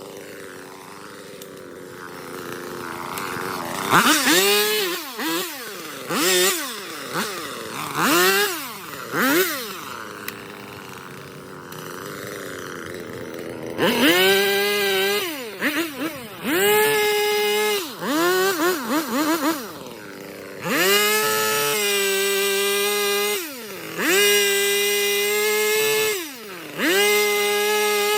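Husqvarna 450e Rancher two-stroke chainsaw, brand new, idling and then revved: first several quick blips of the throttle, then a run of longer pulls, each held at high speed for two to three seconds before it drops back to idle.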